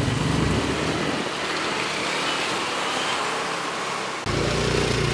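Motorcycle and scooter engines running with road and traffic noise, heard while riding along on a motorbike. The low engine sound drops away early and comes back suddenly about four seconds in.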